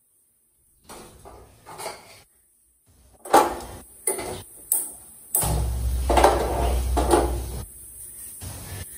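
Kitchen utensils and pots being handled: a run of sharp knocks and clatters, then a low rumble lasting about two seconds with more clatter over it, fading to quieter handling noise.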